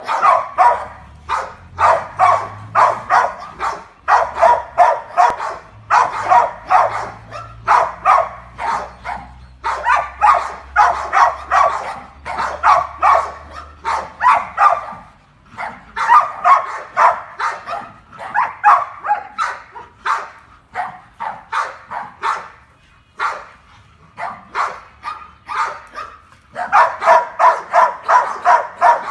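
Dog barking in rapid runs, about three or four barks a second, with short breaks: play barking while the dogs wrestle and chase.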